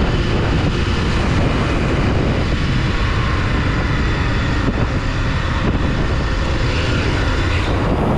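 Motorcycle riding along a street: engine and road noise under wind rushing over the microphone, steady throughout.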